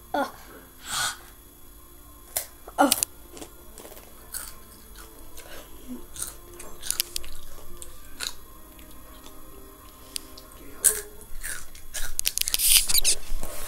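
Crunching and chewing of Takis rolled tortilla chips close to the microphone: sharp crunches every second or two, thickening into a dense run of crunching near the end.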